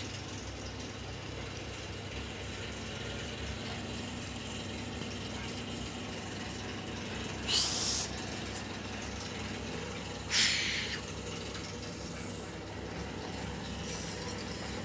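A toddler making two short hissing "shh" sounds, about 7.5 and 10 seconds in, the second lower and longer, over a steady background hum.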